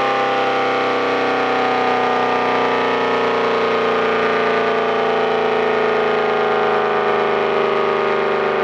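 A 1960s Federal SD-10 air raid siren winding down after its run-up. Its wail falls slowly and steadily in pitch as the rotor coasts to a stop.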